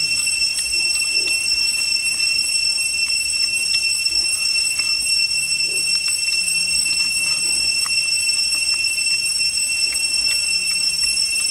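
Cicadas droning in the forest canopy: a loud, steady, high-pitched whine that holds unchanged throughout.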